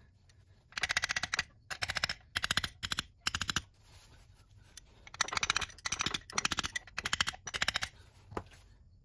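Rapid metallic tapping as a new rear crankshaft seal is driven into the engine block, coming in about nine short runs of quick strikes under a second each, with a pause around the middle.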